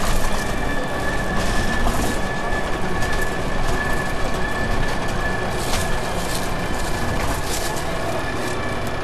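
Inside a Transbus Trident III double-decker bus with a Cummins ISMe diesel and Voith DIWA automatic gearbox, heard near the rear axle: steady loud running noise with a thin steady whine above it and occasional sharp rattles and knocks from the body.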